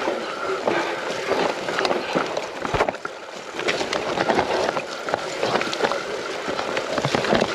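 Mountain bike riding down a rough trail: continuous tyre noise over loose, bumpy ground, with frequent knocks and rattles from the bike.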